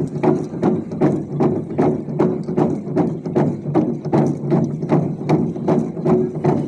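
Naga log drum, a hollowed tree trunk, beaten in unison by a row of players with wooden beaters: a steady, even rhythm of resonant wooden knocks, about three strokes a second.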